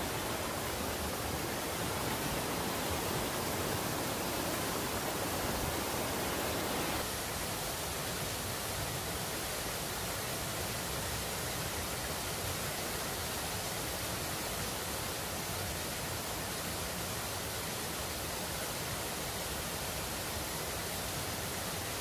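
Steady rushing of a two-tiered waterfall pouring over rock into a pool, dropping a little in level about seven seconds in.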